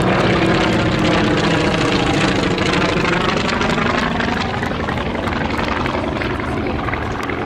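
Polikarpov I-16 fighter's nine-cylinder radial engine and propeller, running at power as the plane flies past overhead. The engine's pitch drops slightly and the sound eases off a little in the second half as it moves away.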